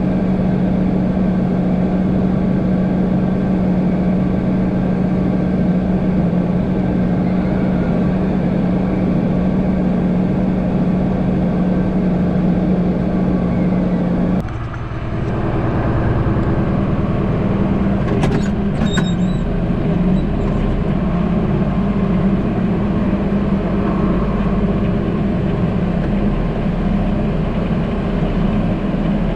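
John Deere tractor's six-cylinder diesel engine running steadily, heard from inside the cab. About halfway through the sound dips briefly and turns into a deeper engine sound, with a few light clicks soon after.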